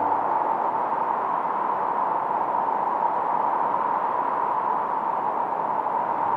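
Filtered noise from a 1972 Minimoog synthesizer's noise generator: a steady hiss centred on a mid-range band, with no pitched tones over it, standing in for the wash of a stormy sea.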